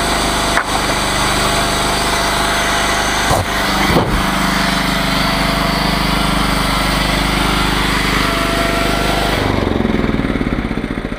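Gas engine of a chainsaw sawmill running steadily at speed, with a few sharp knocks, then shut off by the emergency stop about nine and a half seconds in and winding down in slowing pulses.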